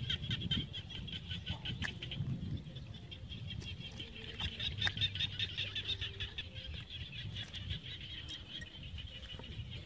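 Frogs calling in a chorus from the rice paddy: a steady, fast-pulsing trill, with a low rumble underneath and a few faint clicks.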